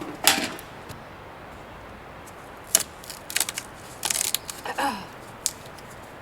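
Intermittent knocks, clicks and short clattering rattles of cedar boards and tools being handled, with a brief scraping creak about five seconds in.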